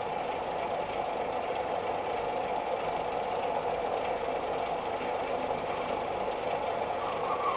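Steady vehicle engine and road noise, heard from inside the vehicle.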